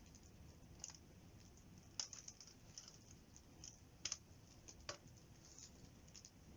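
Wood campfire crackling faintly: scattered sharp pops and ticks, the loudest about two and four seconds in, over a low hush.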